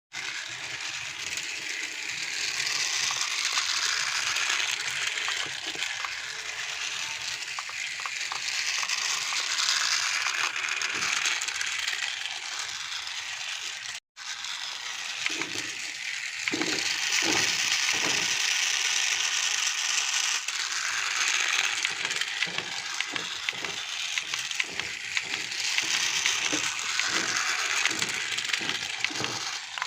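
Plastic toy vehicles running with a steady rattle and whir, with scattered clicks and knocks. The sound cuts out for an instant about halfway through.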